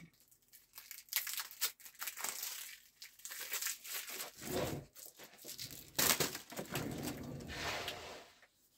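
A sealed deck of playing cards being unwrapped: its wrapper crinkling and tearing in irregular bursts, stopping shortly before the end.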